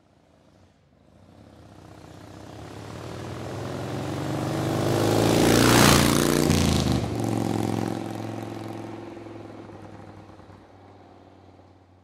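Motorcycle engine passing by. It grows louder as it approaches, passes about six seconds in with a change in pitch, then fades away into the distance.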